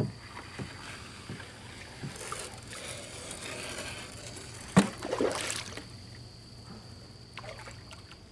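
Water splashing and sloshing beside a small boat as a catfish on a trotline is pulled up to the surface, with a few knocks against the hull and a loud splash about five seconds in. A steady high-pitched drone runs underneath.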